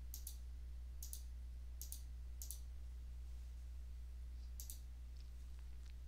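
Computer mouse button clicking about five times, each a quick press-and-release pair, over a steady low electrical hum.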